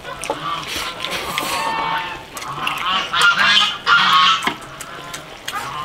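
Domestic farm fowl calling repeatedly, with the loudest calls about three to four seconds in.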